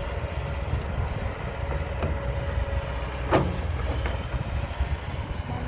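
Kobelco SK200 hydraulic excavator's diesel engine running with a steady low rumble while the boom lifts and lowers a loaded bucket. One short, sharp sound stands out about three and a half seconds in.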